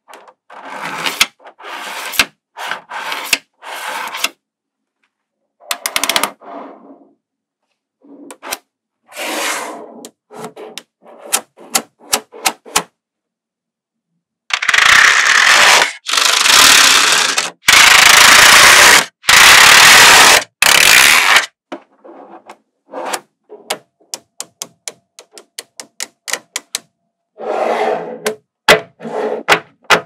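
Small magnetic balls being handled: strips of balls rubbed and slid against each other in short bursts, with sharp clicks as balls snap together. About halfway through, several seconds of loud continuous rattling scrape as a whole sheet of balls is laid down, and near the end a fast run of clicks.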